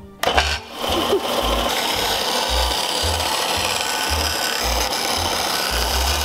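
Bench belt and disc sander running, with a piece of acrylic pressed against its sanding disc: a steady, even rasp of the edge being ground down, starting just under a second in.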